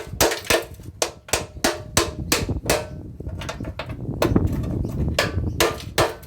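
Rapid hammer blows on metal, about three a second with a short break about halfway, each blow ringing briefly. It is a stubborn brass fitting being knocked out of a cast-alloy floodlight housing.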